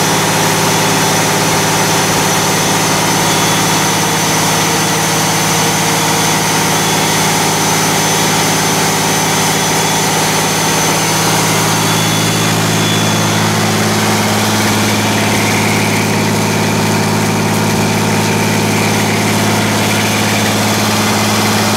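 Detroit Diesel Series 60 inline six-cylinder turbocharged diesel engine running steadily on a test stand, its tone shifting slightly about halfway through.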